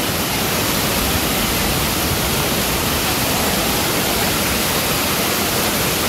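Steady, loud rush of a large waterfall pouring down over rocks.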